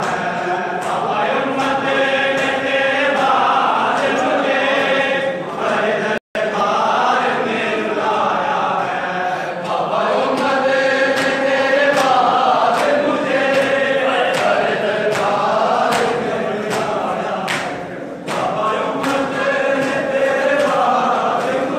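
A crowd of men chanting a mourning lament in unison, with sharp rhythmic chest-beating slaps (matam) about once a second. The audio drops out briefly about six seconds in.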